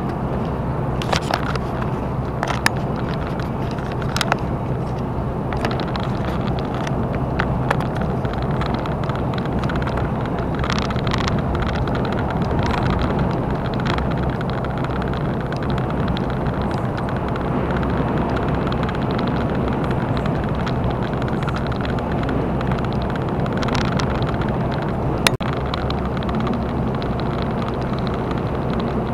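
Steady engine and road noise inside a lorry cab cruising at motorway speed, with a few light clicks.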